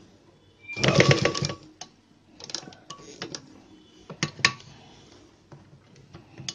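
Sewing machine running a short burst of stitches, about a second long, as a folded edge of blouse fabric is stitched down. Several softer, shorter clatters follow, and two sharp clicks come about four seconds in.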